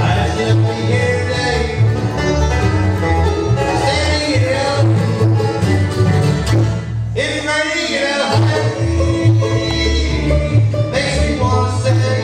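A bluegrass band playing live: plucked upright bass, mandolin, acoustic guitar and five-string banjo, with a man singing lead over them.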